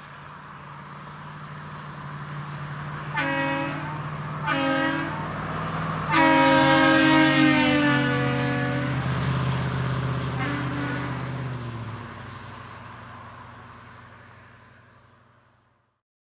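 A 1999 Chevy Silverado with Hooker headers and exhaust driving past, its V8 growing louder and then fading away, while it sounds its Grover air horns. There are two short blasts, then one long blast whose pitch drops as the truck goes by, and a last short, fainter blast.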